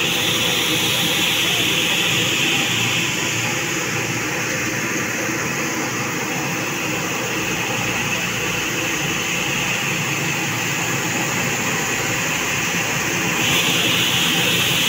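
Wheat cleaning machine running: its DC electric motor drives the shaking sieve trays while wheat rattles over the screens, a steady dense noise. A high hiss eases after about three seconds and comes back near the end.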